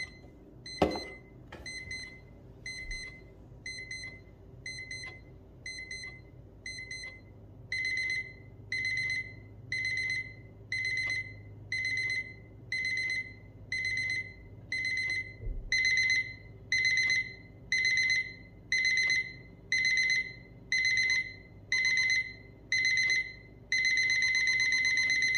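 Sharp quartz analog alarm clock's electronic alarm beeping high-pitched, in bursts about once a second. The bursts start short and faint, grow louder and longer about eight seconds in, and run together into one steady beep near the end. A single knock comes just under a second in.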